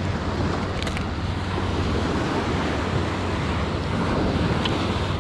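Low surf breaking and washing up on a sandy beach, with wind buffeting the microphone.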